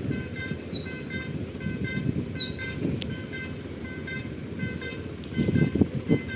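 Short electronic warning tones repeating steadily about twice a second, over a low vehicle rumble that grows louder near the end.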